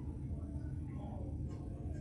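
Quiet room tone in a hall: a steady low hum with faint, indistinct voices in the background.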